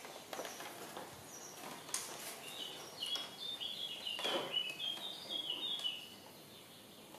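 Plastic scooter body panels being handled and fitted, with scattered light knocks and clicks. From about two and a half seconds in, a songbird sings a run of short, high whistled notes stepping up and down in pitch.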